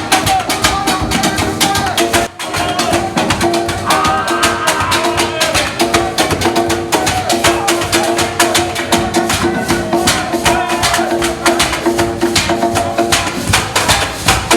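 Music with a fast, busy percussion pattern of sharp, wooden-sounding strikes over held pitched notes, with a very short break about two seconds in.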